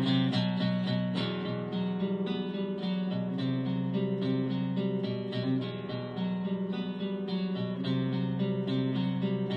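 Acoustic guitar music: plucked and strummed notes ringing over low bass notes in a steady rhythm.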